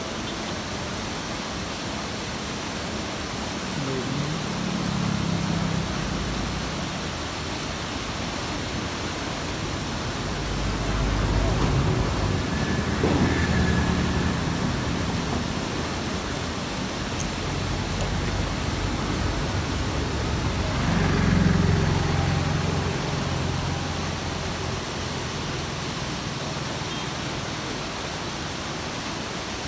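Steady rushing noise with a low rumble that swells and fades three times, typical of vehicles crossing a bridge overhead.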